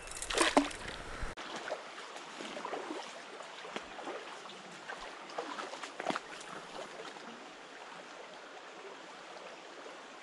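Creek water running high, a steady rushing and rippling with small scattered splashes. A brief loud noise about half a second in stands out above the water.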